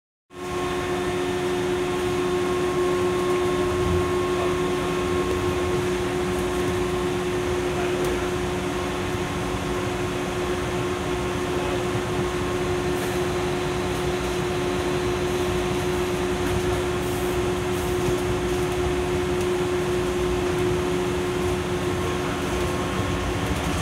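Steady cabin noise of a Taipei Metro train in motion: a low running rumble under a constant hum holding several steady tones, with no announcements.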